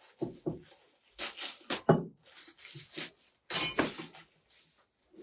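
Parts of a flat-packed floor-standing lamp being handled and unpacked: irregular light clinks and knocks with rustling, loudest twice.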